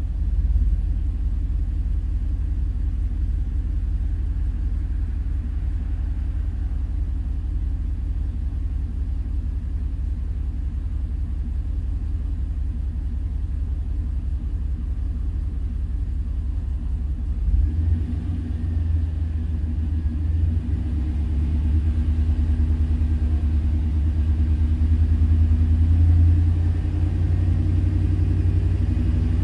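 2001 truck's 5.3-litre LS V8 running with a misfire, a steady low rumble of the engine running poorly. About two-thirds of the way through, the engine note shifts and grows a little louder.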